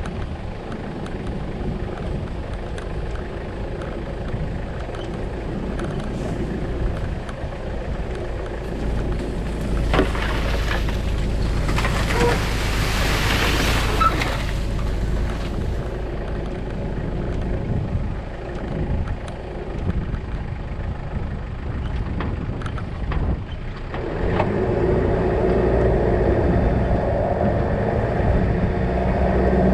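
A vehicle engine running steadily with a low rumble, with a louder rushing noise swelling and fading about ten to fourteen seconds in.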